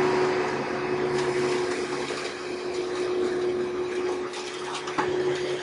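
Hoover Elite direct-air upright vacuum cleaner running with a steady motor whine while picking up aspen shavings, with scattered clicks and one sharper click about five seconds in.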